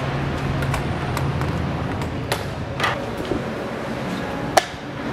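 Train station entrance and concourse ambience: a steady low hum under general background noise, with a few scattered sharp clicks and taps, the loudest shortly before the end.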